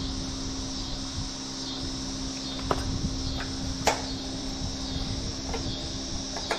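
A few short sharp clicks of hand tools working on the motorcycle, the loudest about four seconds in, over a steady fan hum.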